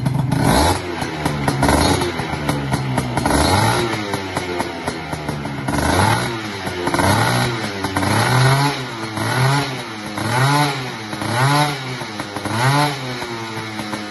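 Gilera Runner 180 two-stroke scooter engine with a handmade CROMOS expansion-chamber exhaust being revved. Longer revs come first, then about seven quick throttle blips roughly a second apart, the pitch rising and falling with each.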